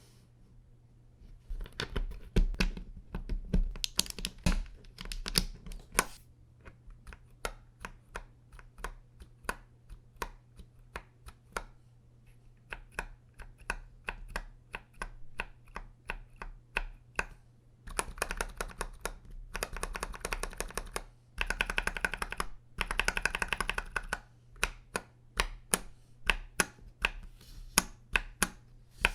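Typing on a KBD67 Lite R3 mechanical keyboard with stock Akko Sponge tactile switches, a notably clacky sound. Single keystrokes and short runs are followed by longer flurries of fast typing in the second half.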